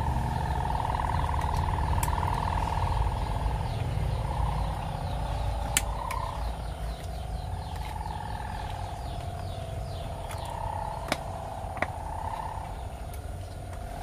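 Steady low vehicle rumble with a wavering mid-pitched hum that slowly fades, and a few sharp clicks of plastic steering-wheel parts being handled as the airbag module and cover are fitted.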